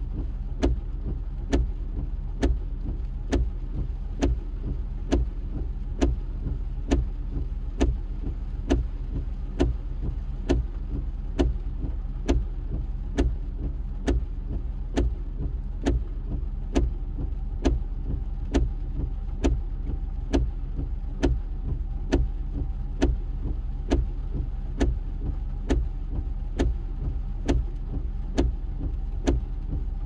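Car windshield wipers running continuously, each sweep ending in a short thump, about two a second in a steady rhythm, over rain on the windshield and a low steady hum, heard from inside the cabin.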